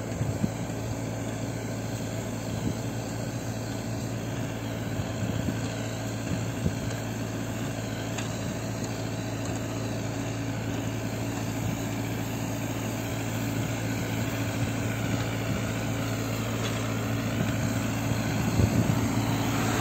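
Road line-marking machine's engine running steadily at a slow crawl, a low even drone that grows a little louder toward the end.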